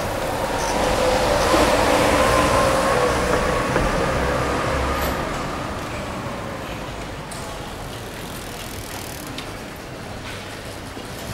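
A motor vehicle passing along the street: its engine and tyre noise, with a steady whine, swells to a peak about two seconds in and then fades away over the next several seconds.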